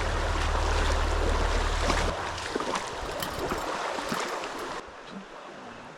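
Creek water flowing, with a low wind rumble on the microphone for the first two seconds; near the end it drops suddenly to a quieter flow.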